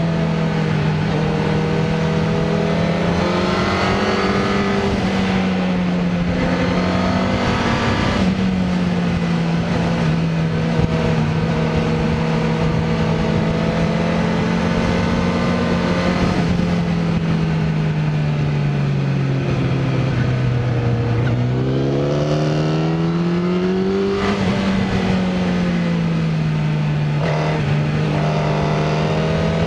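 Sport motorcycle engine running under way on a ride, its pitch rising and falling with the throttle, over a steady rush of wind and road noise. The note sinks lowest about two-thirds of the way through, then climbs quickly.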